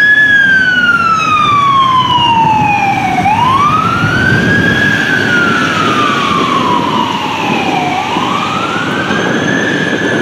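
Fire engine siren on a slow wail, its pitch climbing quickly and then falling slowly, about once every five seconds, over a low rumble of engines and traffic.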